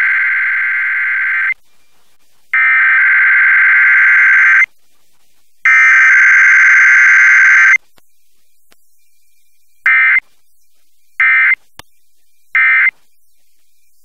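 Emergency Alert System Required Weekly Test over FM radio: three buzzing SAME digital header bursts of about two seconds each, a second apart, followed by three short end-of-message bursts near the end.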